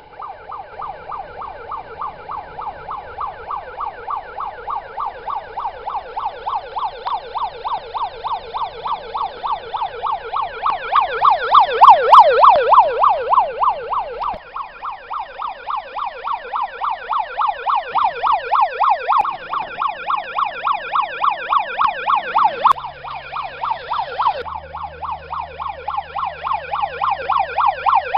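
Electronic police siren from the sound unit of an RC Range Rover police car: a fast rising-and-falling wail repeating a few times a second. It grows louder about halfway through, then eases, and a low steady hum joins in the last few seconds.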